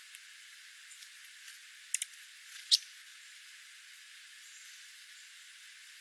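Dark-eyed juncos feeding on scattered birdseed: a quick pair of sharp ticks about two seconds in, then a single louder, sharp chip just before three seconds, over a faint steady hiss.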